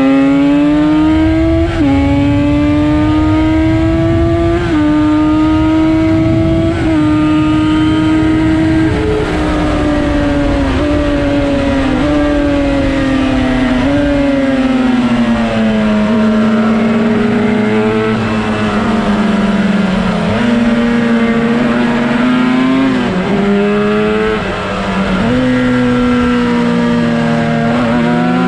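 Two-stroke twin motorcycle engine from a Yamaha RD350, in a Cagiva Mito 125 chassis, racing: the revs climb and drop sharply at each upshift under acceleration, then fall away for a long stretch as it slows, before climbing again through more gear changes.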